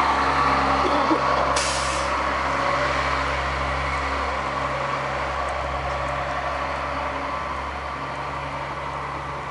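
A heavy vehicle's engine running steadily, with a short hiss about one and a half seconds in, the sound slowly fading.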